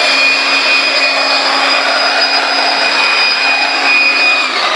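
Electric woodworking power tool motor running with a steady whine, its pitch sagging briefly near the end.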